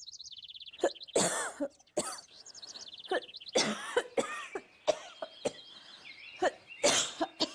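An older woman's coughing fit: a string of harsh coughs, about ten, spread over several seconds. Birds chirp in the background, with a quick trill of chirps at the start.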